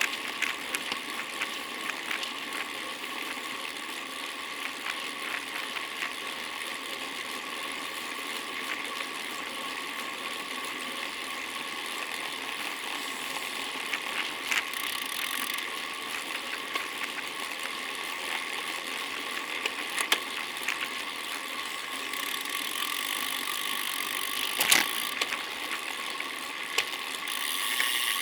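Bicycle freewheel ratcheting as the rider coasts, over steady road and wind noise, with one sharper click near the end.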